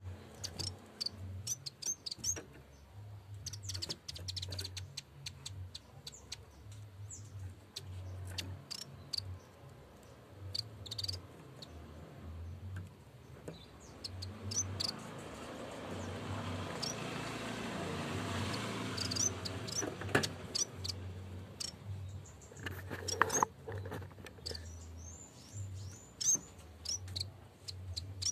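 Yellow-bellied warbler (cikrak bambu) singing: clusters of short, high, sharp notes repeated again and again, the lively song used to call out a rival. A rushing noise swells and fades midway, over a low pulsing hum.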